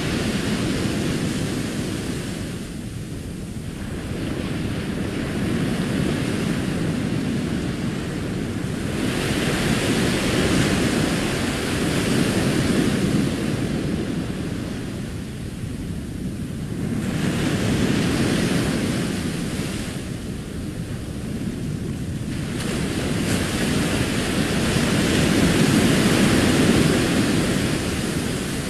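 Recorded ocean surf washing up a sandy beach. It is a steady rushing that swells and ebbs as each wave breaks and draws back, about every five to seven seconds.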